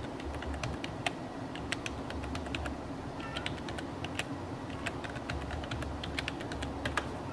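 Computer keyboard typing: a few dozen sharp keystroke clicks in short runs with brief pauses between them.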